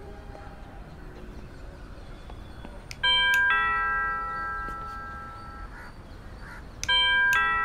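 Doorbell chime rung twice, about four seconds apart. Each ring is a two-note ding-dong whose tones ring on after it.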